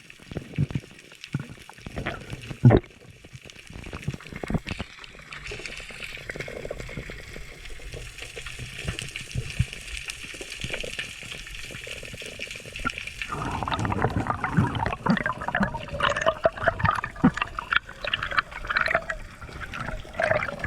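Water sloshing and bubbling, with scattered knocks; it turns louder and busier about 13 seconds in.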